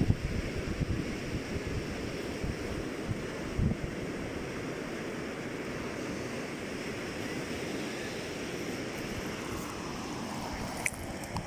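Sea waves washing on the shore, with wind buffeting the microphone in low gusts during the first few seconds.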